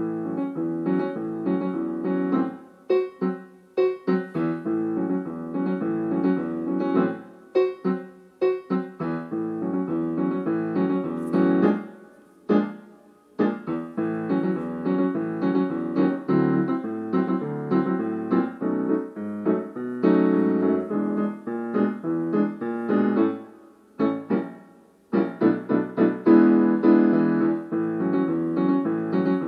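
Solo piano music: chords and melody notes struck in phrases, with brief pauses between phrases.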